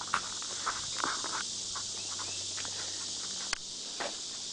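Steady high-pitched chorus of insects, with scattered light taps and clicks and one sharper click about three and a half seconds in.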